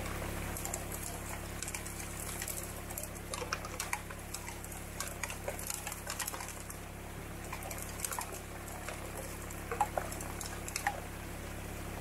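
Gravel and water sloshing in a green plastic gold pan as it is swirled and dipped in a creek, with scattered small splashes and stone clicks over the steady rush of the shallow stream.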